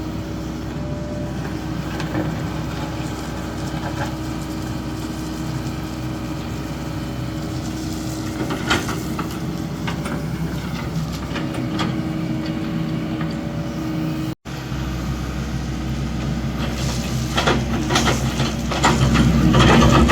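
Excavator engine running steadily, with scattered knocks and clanks. The engine gets louder after a sudden cut about two-thirds of the way through.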